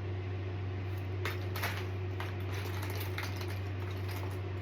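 Small plastic Lego pieces clicking and clattering as they are rummaged through by hand, starting about a second in, over a steady low hum.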